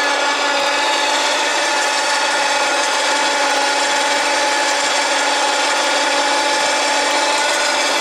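A small electric motor running steadily at constant speed, with an even whine over a hiss.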